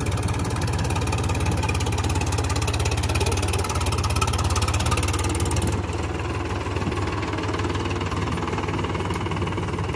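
Powertrac Euro 50 tractor's three-cylinder diesel engine running under load as the tractor climbs out of the muddy paddy field onto the raised bank. The engine eases off slightly about six seconds in.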